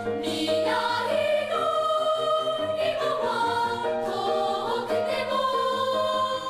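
Children's choir singing a slow melody in long held notes.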